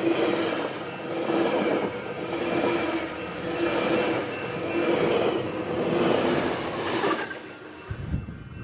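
A passenger train running by on the rails, its sound swelling and easing about once a second as the cars pass, then dropping away near the end, followed by a brief low rumble.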